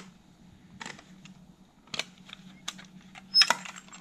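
A cassette tape being handled and taken from its clear plastic case: a string of sharp plastic clicks and crinkles, loudest about three and a half seconds in.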